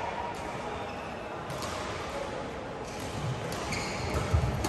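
Badminton rackets striking shuttlecocks: a few sharp, spaced-out hits over the steady background noise of a large, echoing sports hall.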